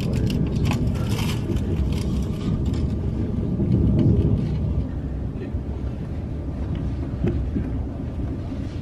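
Steady low rumble inside a running passenger train. In the first couple of seconds it is overlaid by crinkling of aluminium foil and a knife cutting a pancake that rests on the foil.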